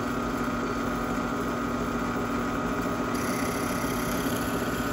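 Drill press running with a steady hum as its bit bores down into the end of a small block of wood.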